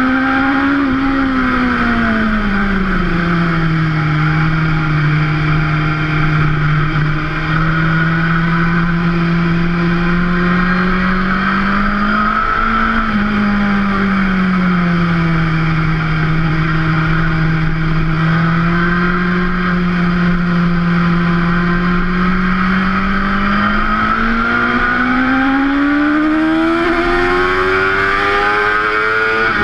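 BMW S1000RR inline-four engine running at speed on track. The engine note drops early on and holds fairly steady with a brief rise about halfway through, then climbs steadily as the bike accelerates near the end, with constant wind rush underneath.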